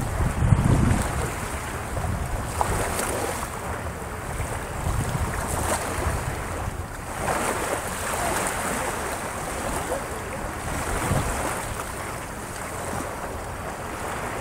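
Small sea waves breaking and washing up a beach, the surf swelling and fading every few seconds, with wind buffeting the microphone.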